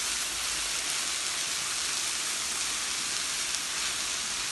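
Dried mloukhiyeh leaves frying with crushed garlic, onion and fresh coriander in a pot: a steady, even sizzle.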